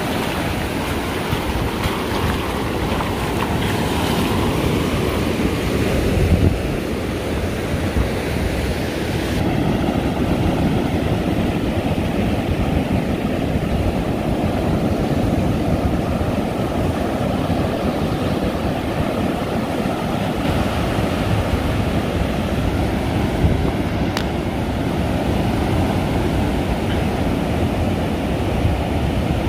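Ocean surf breaking and washing up a beach, steady throughout, with wind rumbling on the microphone.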